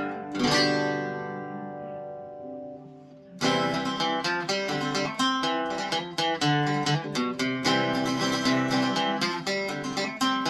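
Kay K6878 Leader archtop acoustic guitar being strummed: a chord is struck about half a second in and left to ring out and fade for nearly three seconds, then quick rhythmic strumming of chords starts again.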